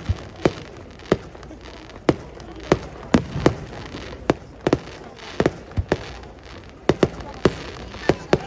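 Aerial fireworks bursting in quick, irregular succession: sharp bangs about two a second, with a low rumble between them.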